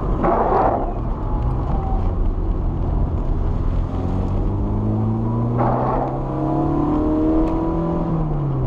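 Car engine pulling on a country road with steady road noise, its pitch climbing for a few seconds and then dropping near the end, with two short surges of hiss.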